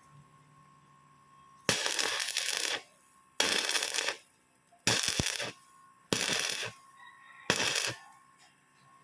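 Arc welding in short runs: five bursts of crackling, each about a second long, roughly every second and a half, as metal is built up onto the worn, loose portion of a truck water pump's shaft. A faint steady high tone runs underneath.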